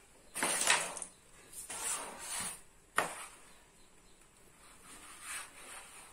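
Carrom striker being slid over the powdered wooden board as it is positioned: a few brushing scrapes in the first two and a half seconds, a single sharp click about three seconds in, and a softer scrape near the end.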